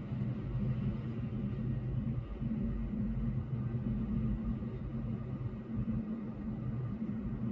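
Low, steady rumble of distant city road traffic heard through a closed window, with a hum that fades and comes back a couple of times.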